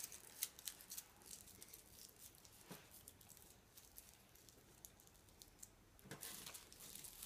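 Near silence, with faint scattered taps and rustles of small children handling tissue paper scraps and a glue stick, pressing the paper onto glued card; the small noises bunch up a little near the end.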